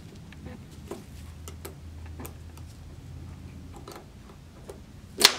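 Light, irregular clicks and ticks of a threaded tubing clamp being unscrewed by hand from a barbed fitting, with one sharper, louder click near the end.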